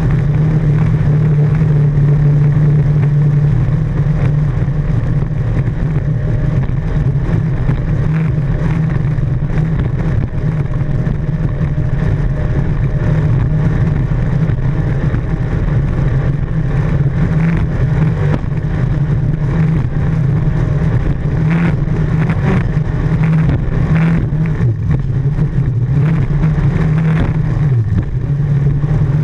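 Jersey speed skiff's engine running steadily at high speed, with water and wind rushing past the hull. The engine note dips briefly near the end.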